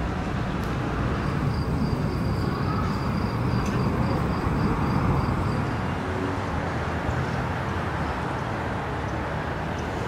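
City street ambience: a steady wash of traffic noise. A thin, faint high whine sits over it for a few seconds, starting about a second in.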